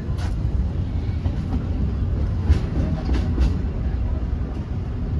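Narrow-gauge steam train with its passenger cars rolling along the track: a steady low rumble, with a few sharp clacks about a second in and around the middle.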